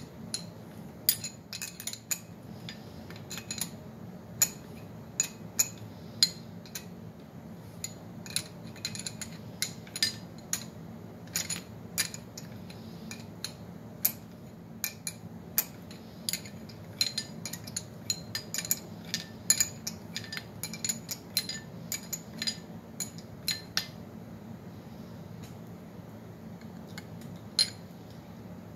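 Metal hand tools clicking and clinking against the bolts and casing of a Cannondale 440 engine as it is taken apart: irregular sharp metallic clicks, thickest through the middle, mostly stopping a few seconds before the end with one last click near the end.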